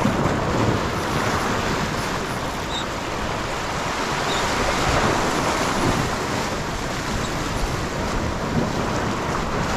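Waves washing and splashing against shoreline rocks, with wind buffeting the microphone.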